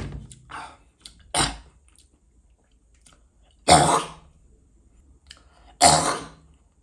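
A man coughing and clearing his throat: a few short coughs in the first second and a half, then two hard coughs about two seconds apart, a burning-throat cough from eating king chilli.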